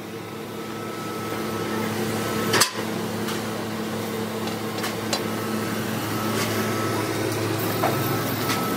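Steady machine hum in a metalworking shop, with one sharp metal knock about two and a half seconds in and a few lighter clicks and taps after it.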